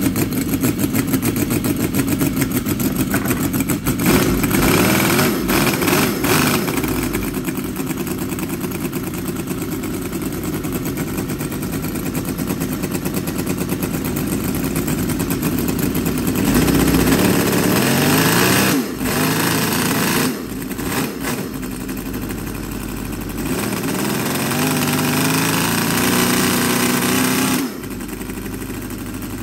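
HL VX-800 scale model V8 petrol engine, fed by a Walbro carburettor, running fast. The revs dip and pick up a few times as the throttle is worked. Near the end it revs up, then drops back to a lower, steadier speed.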